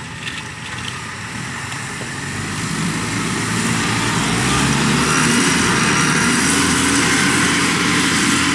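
Engine of a small tracked rice-hauling carrier running steadily as the machine crawls along under its own power, getting louder over the first five seconds or so and then holding steady.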